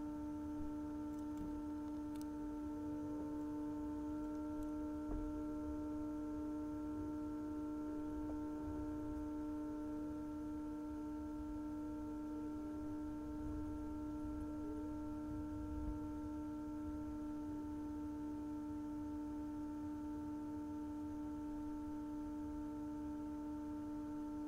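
A steady hum made of several held tones, one low tone the strongest, unchanging throughout, with a faint click or two.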